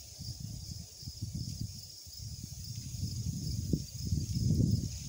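Wind buffeting the microphone in uneven gusts, a low rumble that swells and fades, strongest near the end, over a steady high hiss.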